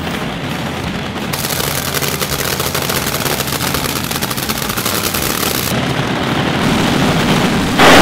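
Supercharged, nitromethane-burning Top Fuel dragster V8 idling with a rapid, machine-gun-like crackle, growing slowly louder. Just before the end it suddenly opens up to full throttle, far louder.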